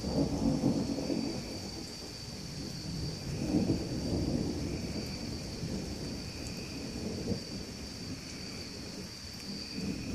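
Thunder rumbling in low rolls during a thunderstorm, loudest at the start and again about three and a half seconds in, with a weaker roll near the end, over the hiss of steady rain. A steady high-pitched drone runs underneath.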